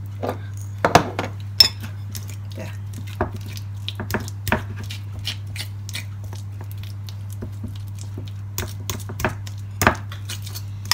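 A metal fork clinking and scraping against a ceramic bowl at irregular intervals as it mashes and mixes softened butter with herbs and pepper, over a steady low hum.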